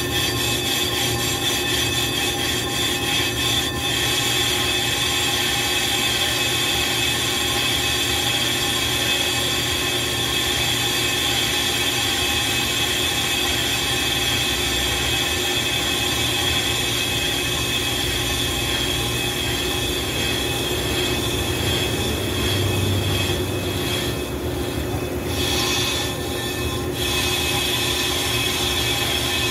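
Brake lathe refacing a brake rotor: the cutting bit on the spinning disc face gives a steady, high-pitched metallic squeal over a lower machine hum. The squeal briefly thins out a few seconds before the end.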